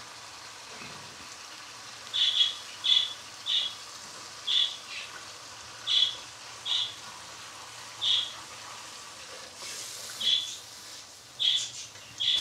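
Masala gravy in mustard oil sizzling steadily in a kadai. Over it, from about two seconds in, come about a dozen short high-pitched chirps, roughly one a second and louder than the sizzle.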